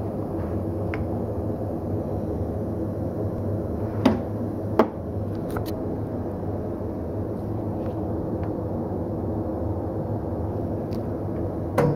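Steady low machine hum with several fixed pitches, broken by two sharp knocks about four and five seconds in.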